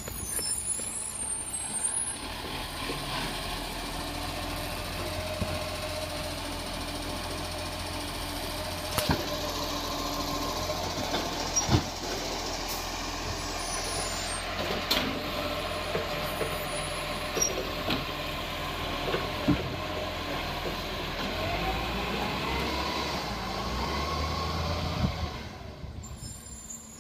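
A garbage truck's engine running steadily, with several sharp knocks and clanks along the way. Near the end the pitch rises and falls before the sound drops away.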